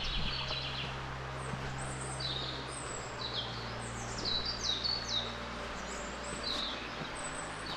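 Small songbirds singing: quick high chirps and short falling notes, repeated at irregular intervals.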